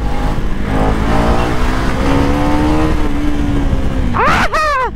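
KTM Duke 250's single-cylinder engine pulling hard under throttle, its pitch climbing and holding, then dropping off just before the end as the throttle is rolled back. A short shout cuts in near the end.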